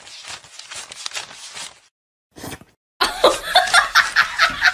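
A person laughing in a quick run of repeated pulses, starting about three seconds in. Before it there is a run of short, crisp strokes, about four a second, then a brief pause.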